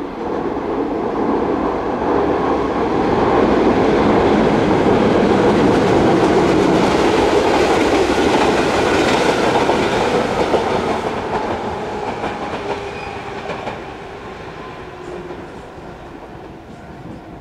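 Shizuoka Railway 1000 series electric train passing by. The sound builds for the first few seconds, is loudest through the middle, then fades away over the last several seconds as the train moves off.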